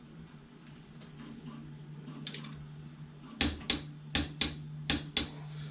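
Click-type torque wrench clicking on the vise: six sharp metallic clicks in rough pairs over the last two seconds, as 50 foot-pounds of input torque is set on the vise, over a low steady hum.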